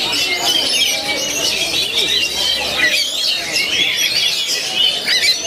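Oriental magpie-robins (kacer) singing: quick, varied whistled phrases and trills overlapping thickly without a break.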